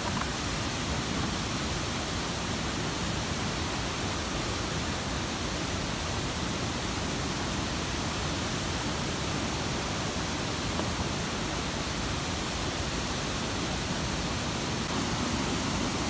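Steady, even rush of a large multi-tiered waterfall, Bridal Veil Falls, pouring over rock ledges in high water.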